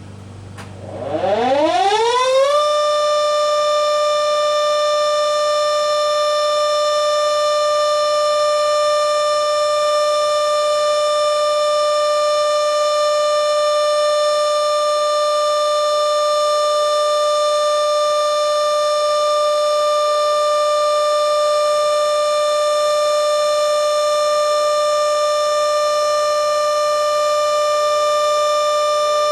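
Kuangbad RF300V single-chopper vertical electric warning siren starting up. Its pitch rises quickly over about a second and a half, then it holds one loud, steady wail at full speed.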